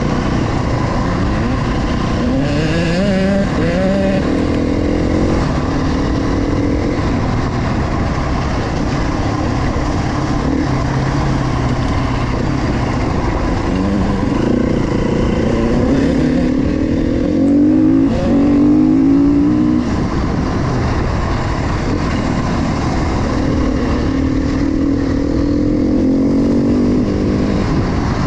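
KTM 350 XCF dirt bike's single-cylinder four-stroke engine under way, accelerating three times with the pitch climbing and dropping back as it shifts up through the gears.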